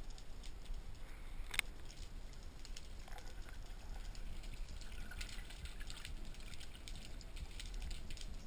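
Underwater sea ambience heard through an action camera's waterproof housing: a low rumble with scattered faint clicks and crackles, and one sharp click about one and a half seconds in.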